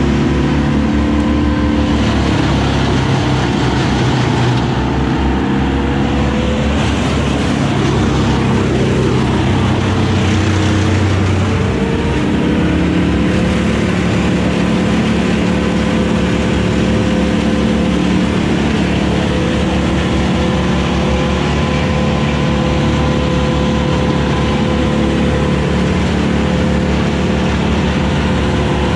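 Mini excavator's diesel engine running close by, its note dipping and recovering a few times in the first half as the boom and bucket are worked, then holding steady. A second engine, the wood chipper's, runs alongside it.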